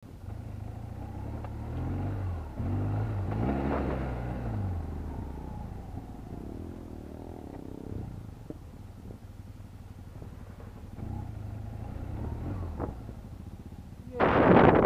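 BMW R 1200 GS flat-twin engine under the rider, revving up and down through the throttle and easing to a lower, steadier note midway. About a second before the end, a sudden loud rush of wind noise on the microphone covers it.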